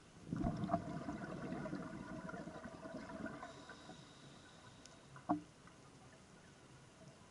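Scuba diver exhaling through a regulator underwater: a burst of gurgling bubbles for about three seconds. A short knock follows about five seconds in.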